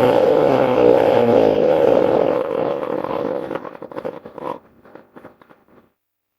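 Hippo-bear creature roar built from hippopotamus and bear sounds: a long, rough, raspy call that fades after about four seconds into a crackling rattle and dies away.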